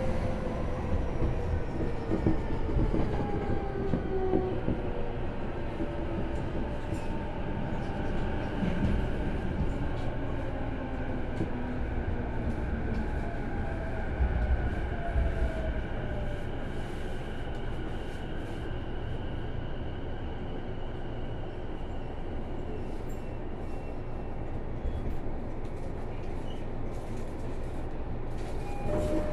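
Inside a Keihin-Tohoku–Negishi Line electric commuter train slowing for a station. The traction motor whine falls in pitch over the first half, over a steady wheel-on-rail rumble, and faint clicks come through later on.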